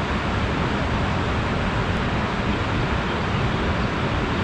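Steady rushing noise with uneven, rumbling wind buffeting on the microphone.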